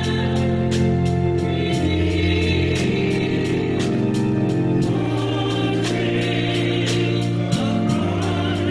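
Church choir singing a gospel song, with a steady beat underneath.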